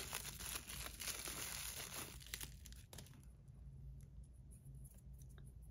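Thin clear plastic bag crinkling as it is pulled off a pair of small fidget-spinner buttons. It dies away after about two and a half seconds, leaving only a few faint ticks.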